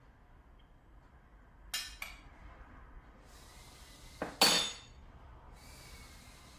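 Hard kitchen items clinking together as they are handled: two light clinks about two seconds in, then a louder clatter with a brief ring about four and a half seconds in.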